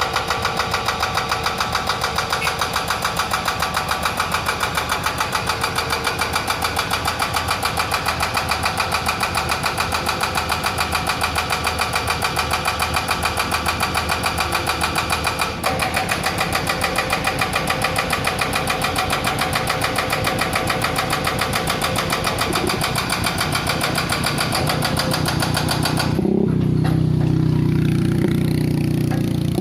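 Excavator-mounted hydraulic breaker hammering with rapid, even blows over the running diesel engine. About three seconds before the end the hammering stops, leaving a smoother, deeper engine and hydraulic sound.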